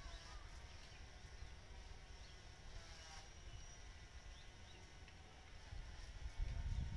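Rural outdoor ambience: scattered short bird chirps and a faint steady high insect hum over low wind rumble on the microphone, the wind growing louder near the end.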